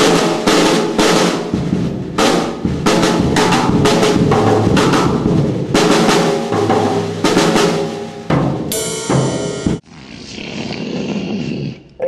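Drum-led background music: a drum kit with snare rolls and steady hits over held tones. About nine seconds in the beat breaks off for a second-long bright, high tone, then a quieter passage.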